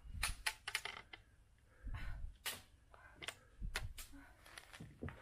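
Irregular sharp clicks and taps, with a few low thumps near the start, about two seconds in and near four seconds.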